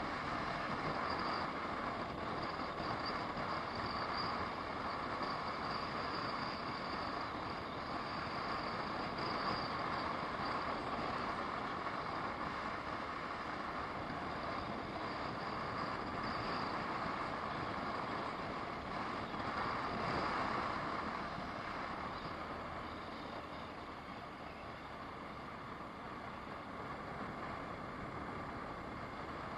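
Car driving, heard from inside the cabin through a dashcam microphone: steady engine and tyre noise, a little quieter in the last several seconds.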